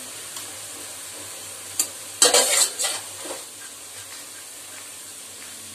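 Sliced onions sizzling steadily in hot oil in a kadhai. A single click comes a little before two seconds in, then a spoon stirring and scraping the pan for about a second.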